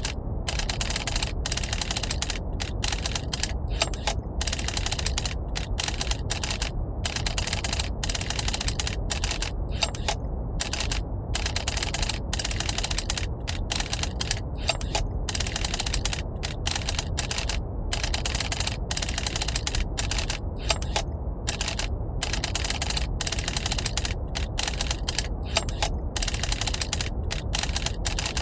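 Mechanical typewriter keys clacking in rapid, uneven runs with brief pauses, over a steady low rumble of brown noise.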